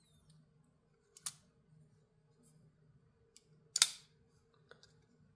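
Kizer button-lock folding knife being worked, its blade clicking as it swings open and snaps shut: a click a little over a second in, a louder sharp snap near four seconds in, and a faint tick just after.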